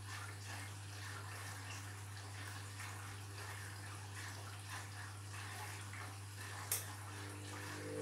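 Candy front-loading washing machine in its wash phase: the drum turns and wet laundry and water slosh inside over a steady low hum. One sharp click about two-thirds of the way through.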